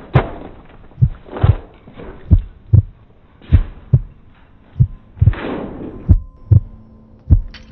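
Slow heartbeat sound effect: deep double thumps, about one pair every 1.3 seconds, with a rushing swell over some of the beats. A faint steady tone joins near the end.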